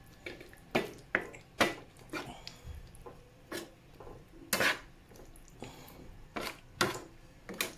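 Slotted metal spatula scraping and clacking against a nonstick frying pan while stirring a thick sauce, in irregular strokes, the loudest about halfway through.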